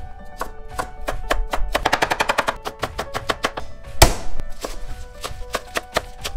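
Background music with a steady tune over a fast run of sharp knife strokes chopping vegetables on a wooden cutting board. There is one loud thud about four seconds in, then slower, scattered strokes.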